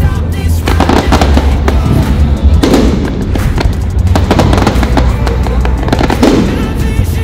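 Aerial fireworks shells bursting in a dense, continuous barrage of crackling and popping, with deep booms underneath.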